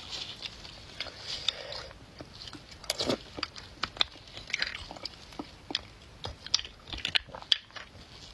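Close-miked eating sounds: a metal spoon scraping and clicking against the inside of a cooked beef marrow bone as the marrow is scooped out, mixed with wet mouth sounds of eating. It comes as a string of sharp, irregular clicks and short scrapes.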